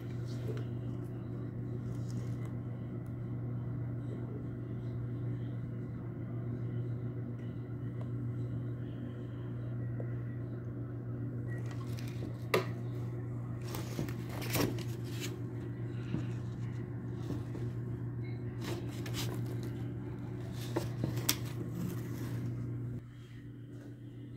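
A steady low mechanical hum that stops shortly before the end, with a few sharp clicks and knocks in the second half.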